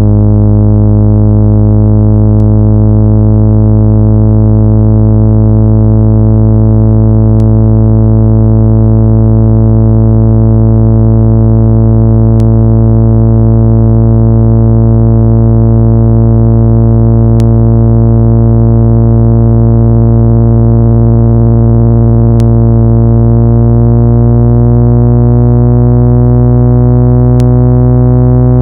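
Loud, steady, low electronic tone with many overtones, played to vibrate a phone speaker's diaphragm and push out water and dust. Some of its higher overtones slowly rise in pitch, and a faint click repeats about every five seconds.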